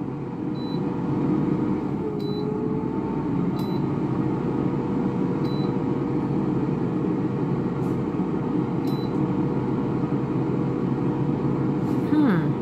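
Touchscreen air fryer's fan running steadily after the cooking cycle has ended, with a short faint high beep about every two seconds.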